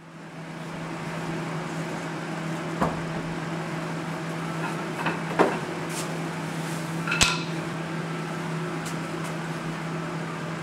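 Steady low hum in a garage workshop, with a few knocks and a sharp metallic clink about seven seconds in as wooden boards and a bare motorcycle frame are handled at the workbench.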